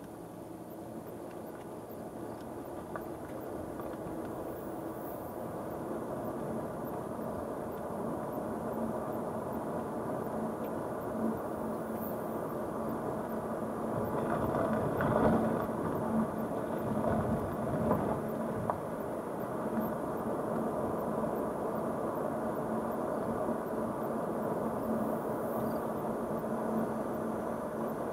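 A car's engine and tyre noise heard from inside the cabin, building steadily as the car gathers speed along the road. A few short bumps stand out around the middle, over patched pavement.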